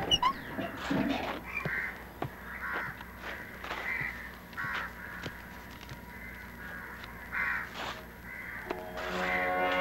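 Crows cawing, a string of separate caws spread over several seconds against a faint background.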